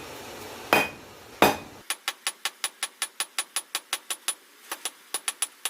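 Hammer blows on steel at an anvil. Two heavier strikes come first, then a fast, even run of lighter ringing blows, about six a second, with a short break partway through.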